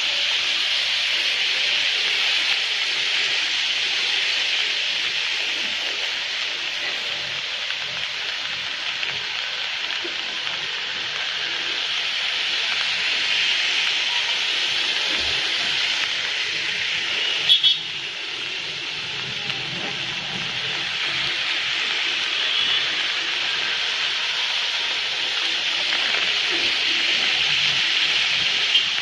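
Steady hiss of rain on a wet city street, with one brief sharp click about two-thirds of the way through.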